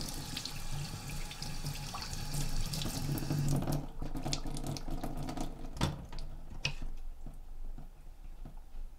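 Kitchen tap running into a stainless steel sink while a fish is rinsed and rubbed by hand under the stream. After about four seconds the water sound thins out, and a few sharp knocks follow as the fish is handled.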